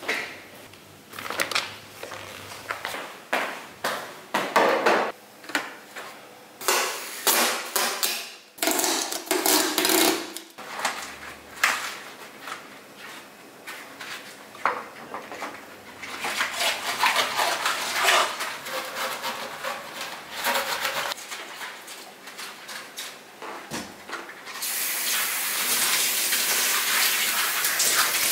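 Kitchen handling sounds: dishes and utensils being moved and set down, with irregular knocks and clinks. About 25 seconds in, a kitchen tap starts running with a steady rush of water.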